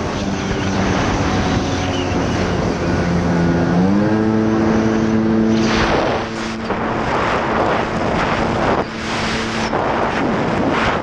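Jet ski engine running under way, its pitch rising as it speeds up a few seconds in and then holding steady. Wind buffets the microphone, and water spray rushes past in bursts.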